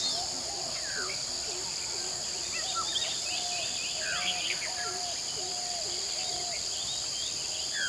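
Tropical forest dawn chorus: many birds calling at once over a steady, high-pitched insect drone. Short calls sweep up and down in pitch, and a lower bird repeats a run of evenly spaced notes through the middle.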